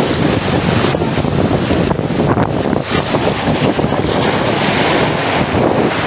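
Wind buffeting the microphone over small sea waves washing and foaming at the shoreline, a steady loud rush.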